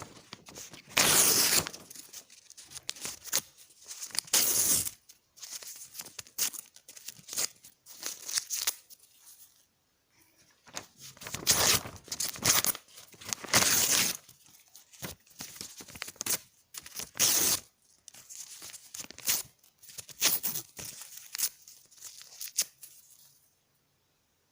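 Paper being torn by hand again and again: a series of sharp rips, several of them long and loud, with quieter crinkling and rustling of the sheets in between.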